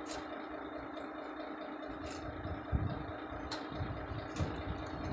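Steady hum of an idling engine running nearby, with a constant low tone. A few light clicks, and low irregular bumps from about two and a half seconds in.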